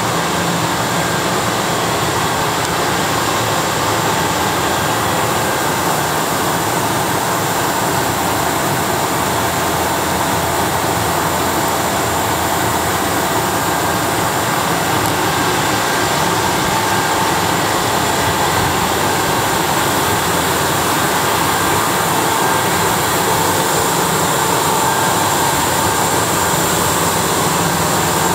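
SEPTA Silverliner IV electric multiple-unit railcar standing at the platform with its blowers and air-conditioning running: a steady rushing hum with faint whining tones that does not change.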